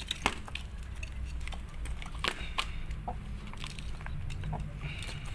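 Chicken clucking faintly now and then among scattered sharp clicks and knocks, over a steady low rumble.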